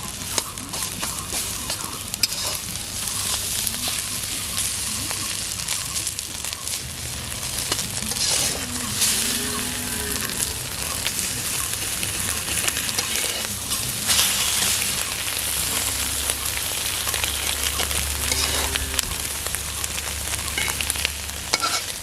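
Beaten egg frying in hot oil in a pan: a steady sizzle with many small crackles.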